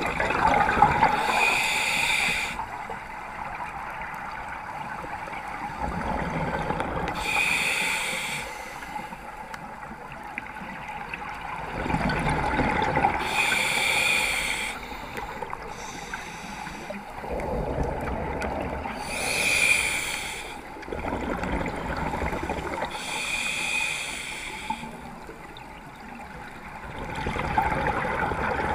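Scuba diver breathing underwater through a regulator: a hissing breath about every five to six seconds, with bubbling water noise in between.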